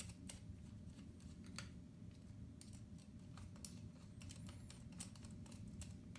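Faint, irregular small clicks and ticks of a hand screwdriver tightening M3 screws down into their nuts, over a low steady hum.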